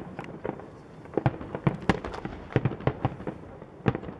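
Fireworks display: aerial shells bursting in quick, irregular succession, many sharp bangs, several a second at times.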